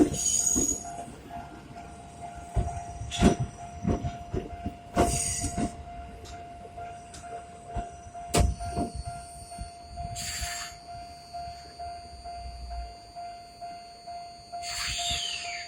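Level-crossing bell dinging steadily about twice a second while a Tokyo Metro Ginza Line subway train crosses, its wheels clunking over the rail joints in uneven thumps. There is a brief hiss about ten seconds in, and near the end a wheel squeal falls in pitch.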